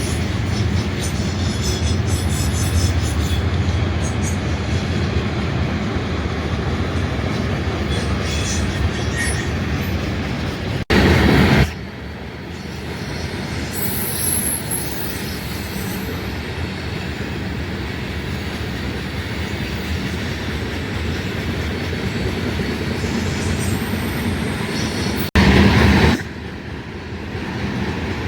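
Freight train rolling past on the tracks: a steady rumble of rail cars with some wheel squeal. It is broken by two brief louder bursts that start and stop abruptly.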